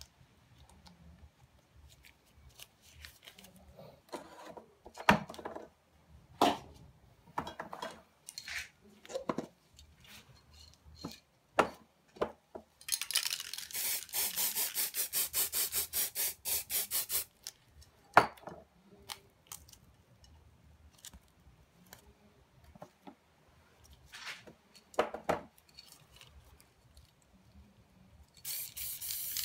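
Aerosol spray paint can hissing in quick pulses for a few seconds about halfway as black paint is sprayed around a round mask, with scattered clicks and knocks of the mask and can being handled before and after. The spray hiss starts again just before the end.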